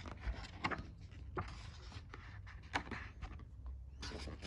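Faint rustling of a picture book's paper pages being handled and turned, with three light clicks in the first three seconds and more rustling near the end.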